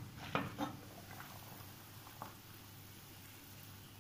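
Aluminium lid on a steel kadai being handled, giving a few light clinks in the first second and two fainter ones later, over a faint steady hum.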